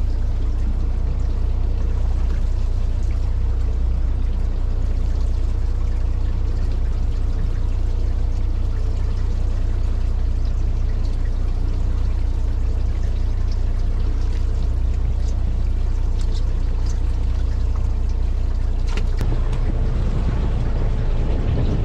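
Fishing boat's engine running with a steady low drone, with water noise over it and a few faint ticks; the drone gets fuller about nineteen seconds in.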